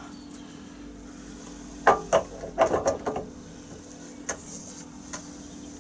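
Metal clinks and knocks of a mini-lathe chuck being handled and seated on the lathe spindle: a quick cluster of knocks about two seconds in, then a couple of single clicks, over a steady low hum.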